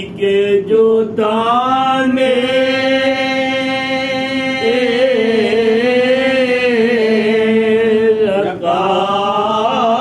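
Men's voices chanting an unaccompanied Urdu Muharram elegy for Imam Husain (Shabbir, Karbala) in long, drawn-out held notes. A brief break comes near the end before the next phrase begins.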